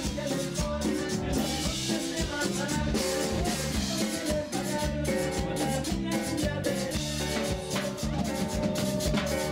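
Background music: an upbeat Tejano band track with drum kit and percussion over a steady beat.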